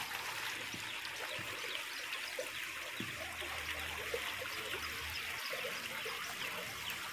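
A hand rubbing and mixing grated cauliflower into dry wheat flour and spices in a steel bowl: a steady, crumbly rustling.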